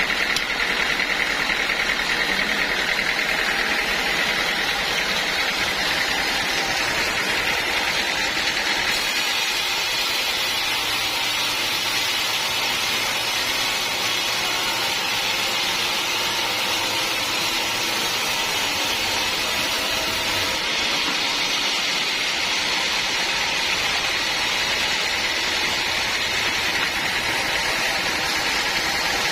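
Sawmill running steadily, its saw cutting through teak wood.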